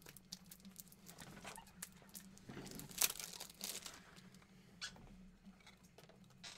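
Scattered light clicks and crinkly rustling from handling on the tabletop, with a sharper click about three seconds in, over a faint steady low hum.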